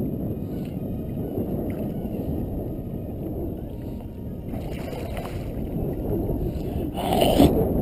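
Steady wind noise and water lapping around a kayak on the water, with a brief louder rush of noise about seven seconds in.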